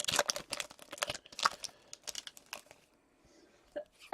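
Hockey card pack wrapper crinkling and tearing as it is opened by hand, a quick run of crackles that dies away about two and a half seconds in.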